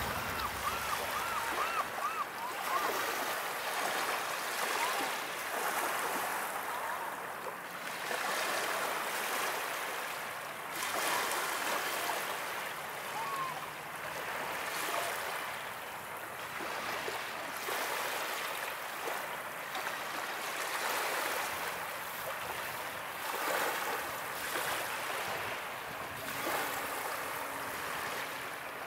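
Small waves washing in and out over a rocky pebble beach: a steady rush of water that swells and eases every few seconds. A few brief bird calls sound near the start.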